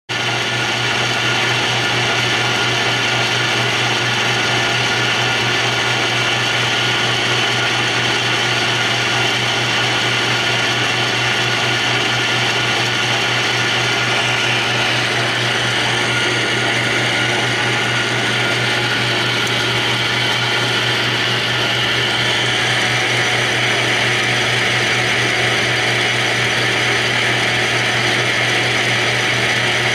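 South Bend Model A heavy engine lathe running under power: a steady mechanical whir of motor and gear train with a low hum and fast gear chatter.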